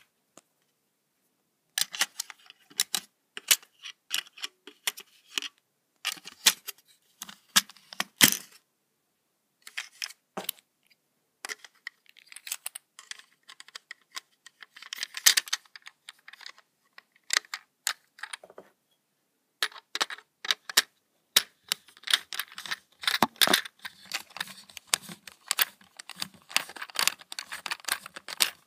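Irregular plastic clicks, taps and rattles from a Plarail toy train car being handled, with its battery in the battery compartment, coming in clusters with short pauses and growing busier and denser from about two-thirds of the way in.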